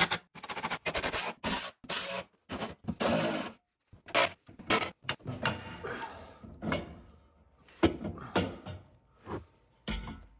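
Cordless power tool run in short bursts on the bolts of an aluminium underbody support brace, followed by irregular scraping and knocking of the metal brace being worked free.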